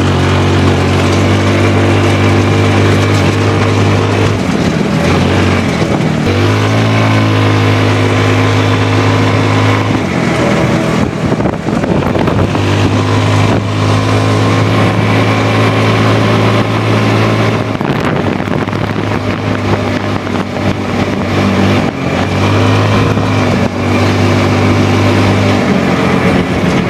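Hammerhead go-kart's small petrol engine running while the kart is driven, heard from the seat: a steady hum that eases off and picks back up several times as the throttle is let off and opened again.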